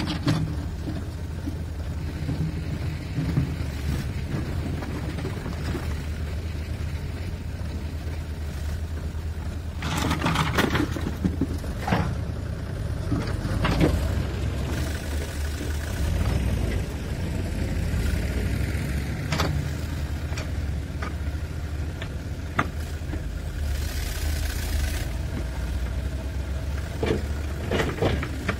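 Diesel engine of a backhoe loader running steadily as its rear bucket tips stone blocks into a tractor trolley, with a series of sharp clattering knocks of blocks striking the trolley bed and each other, bunched about ten to fourteen seconds in and recurring later.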